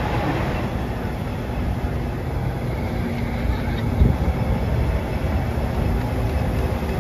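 Semi truck's diesel engine running at low speed as the truck crawls forward, a steady low rumble, with a short thump about four seconds in.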